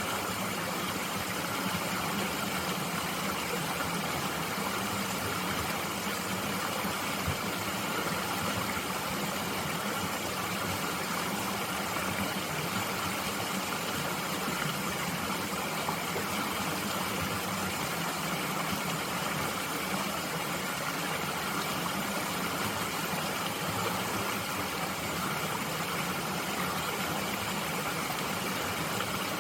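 Stream water flowing steadily, an even rushing noise with no breaks.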